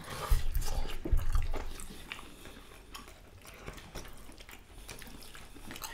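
Close-miked eating with the hands: fingers squishing rice and dal on plates, with wet chewing and mouth sounds as a string of small clicks. A few low thumps come in the first second and a half.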